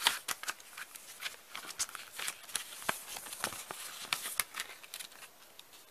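Handling noise from a clear plastic sleeve and a blue plastic Blu-ray case: irregular crinkling rustles and small clicks that die away near the end.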